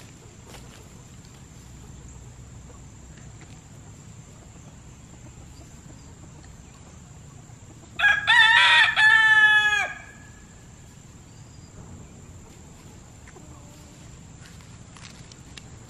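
A rooster crowing once, about eight seconds in: one loud call of about two seconds, broken into a few segments and trailing off with a falling note. The rest is only faint background sound.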